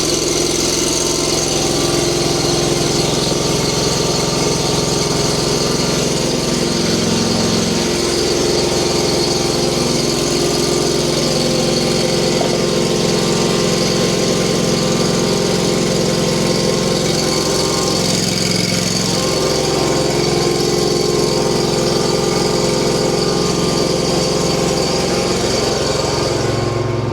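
Kawasaki lawn mower engine running steadily just after a cold start, caught without starting fluid once the intake and cylinder had been warmed. Its speed shifts slightly a few times.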